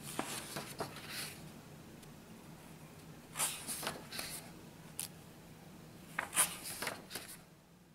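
Paper pages of a handwritten notebook being turned by hand: several bouts of rustling and flicking, each a second or so long, over a faint steady hum.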